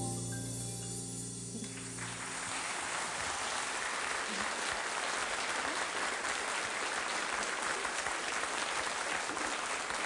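The trio's last held chord on piano and double bass dies away, and about two seconds in the studio audience breaks into steady applause.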